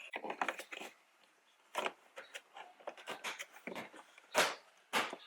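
Irregular light clicks, taps and rustling of wiring and plastic trim as LED cables are tucked into a car door panel, with a few sharper clicks about two seconds in and near the end.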